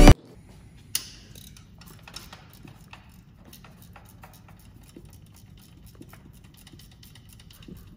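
Light clicks and metallic taps of hands and tools working bolts on a gearbox being fitted under a car, with one sharper click about a second in. A faint steady low hum runs underneath.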